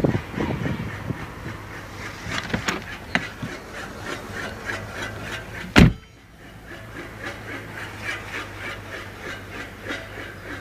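Fast, even rattle over a steady low hum from a 2010 Mercedes E350 CDI 4Matic, the symptom of its damaged cardan (propeller) shaft; one sharp knock about six seconds in.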